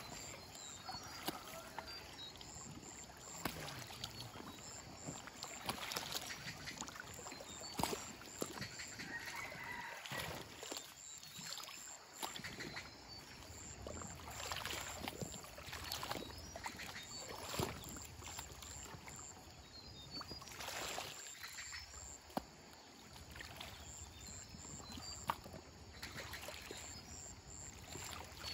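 Water splashing and pouring off a collapsible octagonal fish trap net as it is hauled out of the river, shaken and dipped back in, in irregular splashes.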